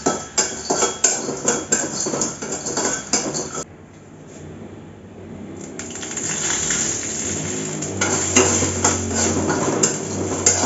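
A steel ladle clinking and scraping against a steel kadai while badi (sun-dried lentil dumplings) are stir-fried. A little over a third of the way in the clatter cuts off abruptly, then a frying sizzle builds and the ladle clinks start again.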